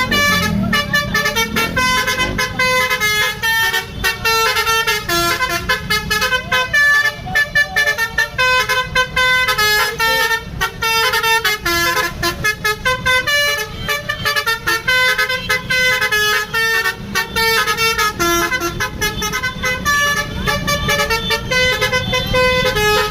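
Telolet Basuri bus horn playing a melody of quick stepped notes, each a clear horn tone that jumps to the next pitch every fraction of a second, over the low running of the bus engine.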